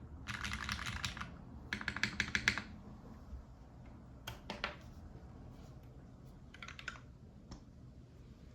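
Typing on a custom mechanical keyboard with lubed Cherry MX Black linear switches on an aluminium plate, O-ring mounted. Two quick runs of keystrokes come in the first two and a half seconds, then it slows to a few scattered single key presses.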